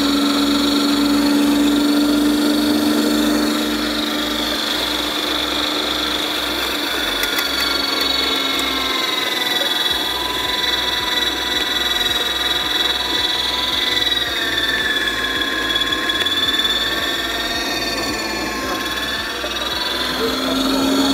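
Мастерица electric meat grinder's motor running with its screw juicer attachment, pressing apples. A steady low hum and whine waver in pitch as the load changes, and the low hum drops away for a stretch in the middle before coming back near the end.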